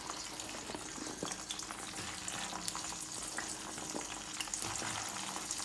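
Cut okra pieces frying in hot oil in a stainless steel pan: a steady sizzle with scattered small crackles.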